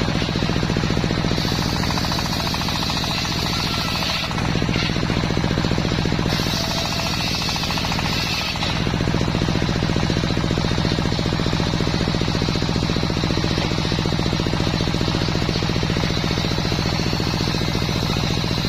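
Homemade engine-driven circular sawmill running, its engine beating fast and steady under the hiss of the saw blade cutting a waru log; the blade's hiss shifts several times in the first nine seconds, then holds steady.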